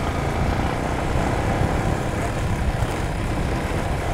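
A motorcycle riding steadily, its engine and tyre noise mixed with a low rumble of wind on the microphone.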